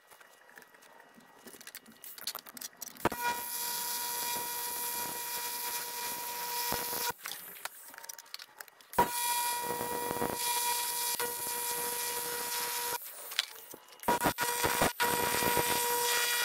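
AC TIG welding arc on aluminum: a steady buzzing hiss with a fixed hum. It comes in three runs of about four seconds each, the first starting about three seconds in, with short pauses between them.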